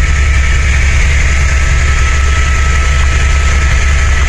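Helicopter in flight: a loud, steady drone of rotor and engine with a rapid low beat and a thin steady high whine over it.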